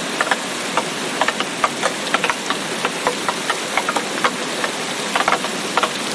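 Steady rain: an even hiss with irregular sharp taps of drops, several a second.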